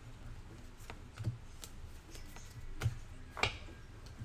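Baseball trading cards being flipped and slid off a stack in the hands, card stock scraping and ticking softly, about six times at uneven intervals.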